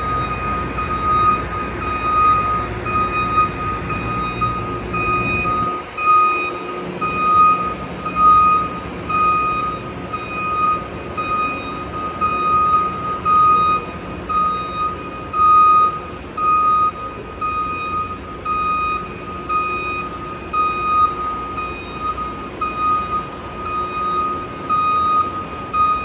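Boom lift's motion alarm beeping on and off continuously as the lift is driven, a high repeating beep over a background hum. A low rumble under it drops away about six seconds in.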